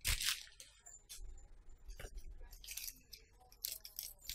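A plastic courier mailer bag crinkles as it is picked up and handled, loudest right at the start. Near the end, scissors cut into the plastic in a few short snips.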